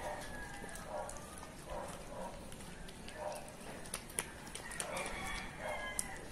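Shih-poo dog eating wet rice-and-meat food from a stainless steel bowl: wet smacking and chewing roughly once a second, with sharp clicks of teeth or tongue against the metal bowl, more of them in the second half.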